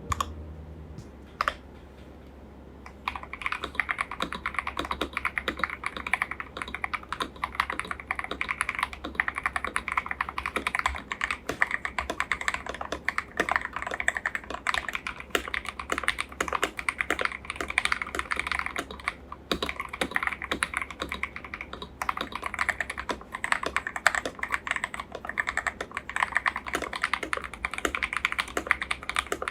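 Fast, continuous typing on a KBD67 Lite mechanical keyboard with linear switches and plastic keycaps, as a typing sound test. It starts with a lone keystroke about a second and a half in, then dense key clacks from about three seconds in.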